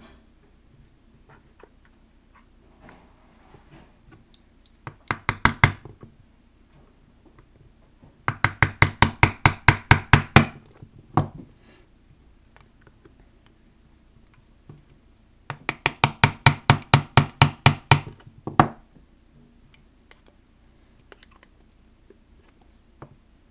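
Quick runs of light tapping, about five or six taps a second, as a pin is tapped through the thin aluminium can wall to punch the stove's burner holes. There is a short run about five seconds in, then two longer runs of two to three seconds each.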